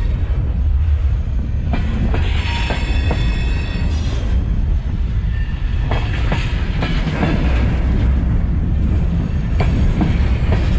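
Union Pacific freight cars rolling past close to the microphone: a steady heavy rumble of steel wheels on rail, with groups of sharp clacks as wheel sets cross rail joints. A brief wheel squeal comes about two seconds in.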